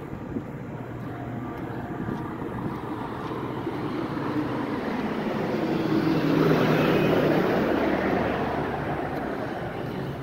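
A road vehicle driving past close by on the street. Its noise swells steadily to a peak about six to seven seconds in, then fades away.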